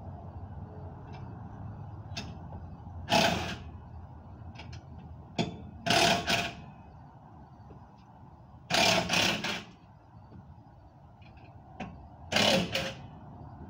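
Four short, loud bursts of tool noise from work at a car's rear wheel, over a steady low hum.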